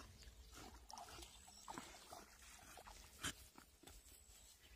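Faint breathing noises of a jagdterrier swimming with a ball in its mouth and climbing out onto the bank, a few short sounds scattered through, the clearest about three seconds in.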